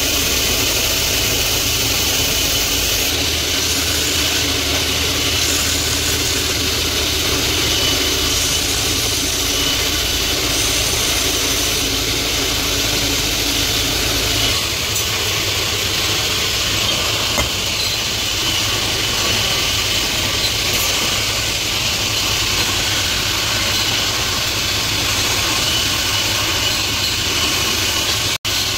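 Electric bench grinder motor running steadily: a low hum under a constant high hiss, with a few faint ticks. The sound breaks off for an instant near the end.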